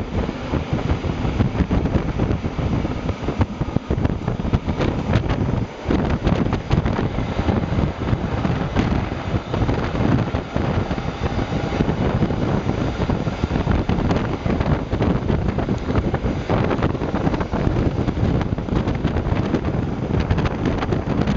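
Wind buffeting the microphone of a camera held out of a moving train's open window, over the steady running noise of the train.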